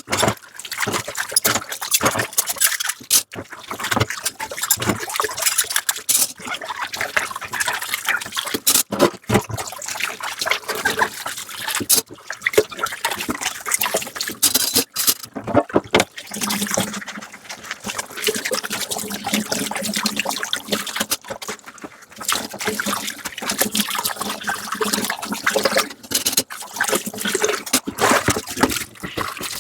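Dishes being washed under running tap water: water splashing and trickling in a sink, with frequent clinks and knocks of dishes being handled. A low steady hum joins in for several seconds near the middle.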